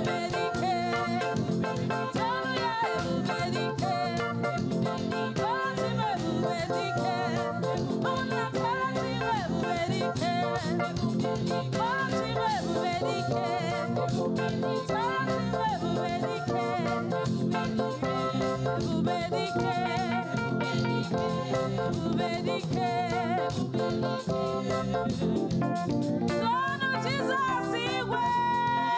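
Live gospel praise music: a band with guitar and drums playing steadily under wavering sung lines.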